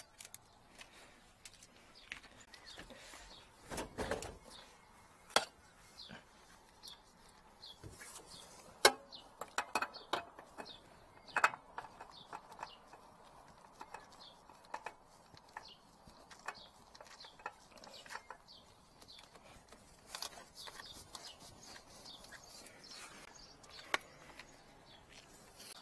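Faint handling sounds of gloved hands and tools working on a machine's engine: sporadic light clicks and knocks, a few sharper metallic clicks, and a brief rustle about four seconds in.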